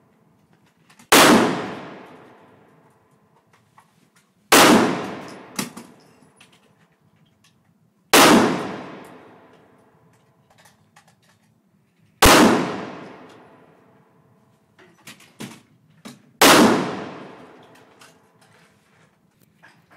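Five single gunshots fired one at a time, roughly every three and a half to four seconds, each with a long echo that dies away over about two seconds. Faint clicks and small knocks come between the shots.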